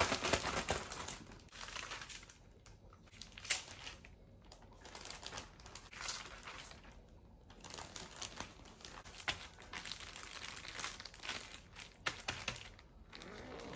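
Plastic Ziploc bag crinkling and rustling in irregular bursts as steaks are packed into it and the bag is pressed flat.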